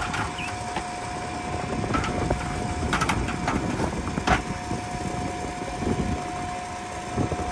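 Boat engine running under wind noise on the microphone, with a steady high whine throughout and a few sharp clicks about three and four seconds in.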